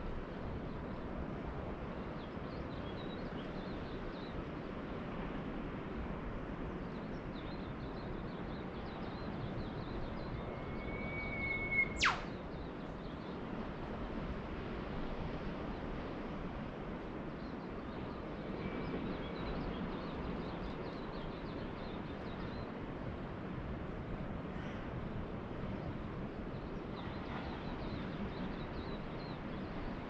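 Steady wash of distant ocean surf. About twelve seconds in, a bird calls once: a held whistle that ends in a sharp downward whip-crack. Faint chirps from other birds sound now and then.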